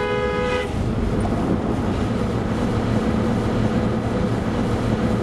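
Strong tornado wind roaring steadily with a low rumble, opening with a brief steady tone that cuts off within the first second.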